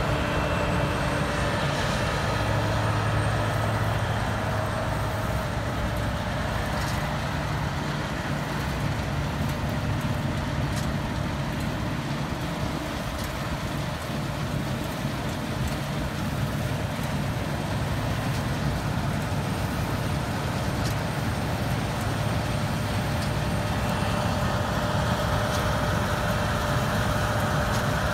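Claas Lexion 570+ combine harvester working, cutting spring barley with its Vario 750 header: a steady engine and threshing hum with a few held tones. It grows a little fainter around the middle and louder again near the end as the machine comes back closer.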